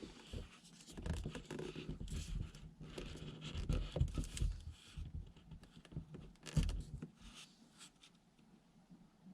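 Irregular rustling and scratching with soft low thuds, busiest through the middle and thinning to faint scratches near the end.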